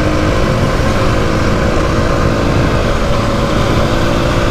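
Mondial SMX 125i supermoto's 125 cc single-cylinder engine running at a steady cruise, with wind rushing over the helmet microphone.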